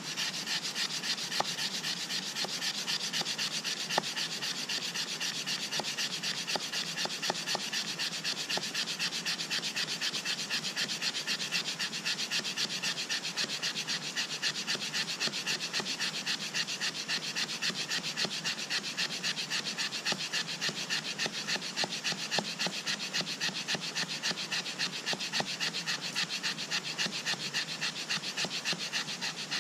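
Fire plough: a flat wooden stick driven rapidly back and forth along a groove in a dry log, wood scraping on wood in quick, even strokes. It is friction fire-making, grinding the groove to build up hot wood dust.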